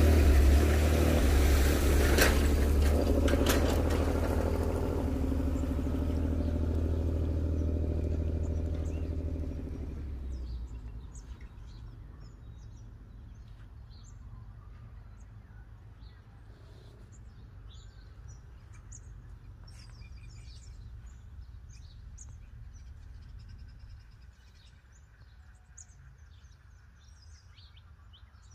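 A motor vehicle's engine running and fading away over the first ten seconds or so, with a couple of sharp knocks near the start. Small birds then chirp and call.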